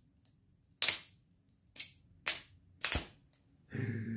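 Plastic pull-tab seal strip on an iPhone 12 box being ripped off in four short, sharp tearing snaps, the first the loudest. A man's voice starts near the end.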